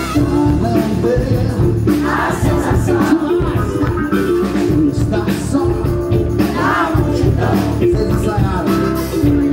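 Live band music: a man singing into a microphone over electric guitar, drums and keyboard.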